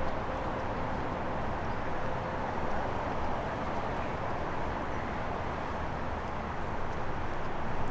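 Steady outdoor ambient noise with a low rumble and no distinct events.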